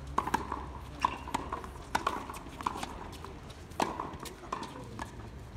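Tennis balls struck by rackets and bouncing on a hard court: sharp pops at an uneven pace, about two a second.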